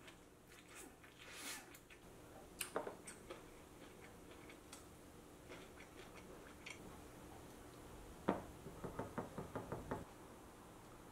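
Chopsticks clicking against ceramic bowls and a plate while eating. There are a few light clicks about three seconds in, then a knock and a quick rattle of about ten clicks near the end.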